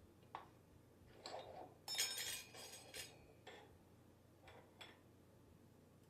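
Metal transmission parts clinking and knocking against each other as they are handled, with a cluster of ringing, jangling clinks about two seconds in and a few single clicks around it.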